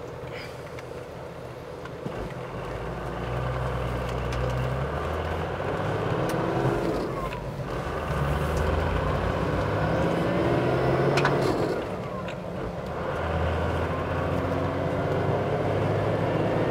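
Toyota Land Cruiser 60 Series' 12HT turbo-diesel straight-six heard from inside the cab, accelerating up through the gears: the revs climb, drop at a shift about seven seconds in, climb again, and drop at a second shift about twelve seconds in. No whine comes from the freshly rebuilt five-speed gearbox and transfer case, which is quiet as a mouse.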